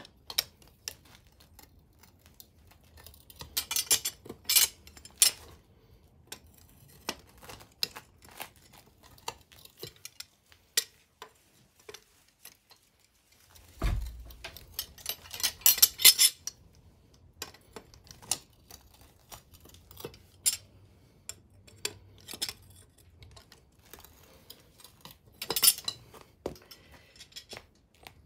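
Irregular metallic clicks and clinks from a steel spanner working the nut on the threaded end of a car's rear trailing arm, with a dull knock about halfway through.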